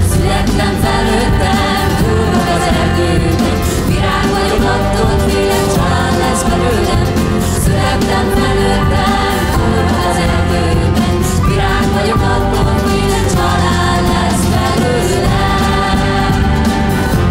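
Large mixed choir and vocal ensemble singing a Hungarian song in full voice, with live band accompaniment underneath.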